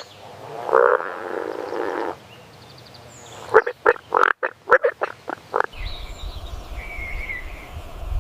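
Frogs croaking: one raspy call lasting about a second and a half, then a quick run of short clicking croaks. Near the end, a low rumble and high chirping calls take over.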